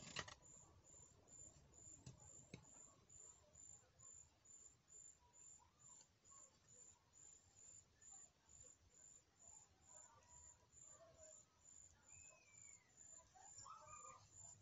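Near silence: faint outdoor background with a faint high chirp repeating about twice a second, and a few soft knocks in the first three seconds.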